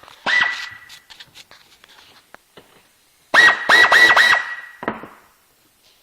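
Power drill turning a 14 mm socket to run nuts onto carriage bolts: one short run, then four quick trigger pulls that each spin up to a steady whine, ending in a longer run.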